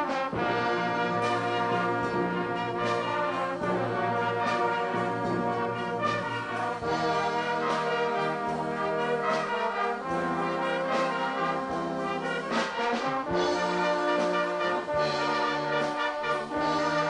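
Brass band playing: sustained brass chords that shift every second or so over a low bass line, with sharp drum strikes throughout.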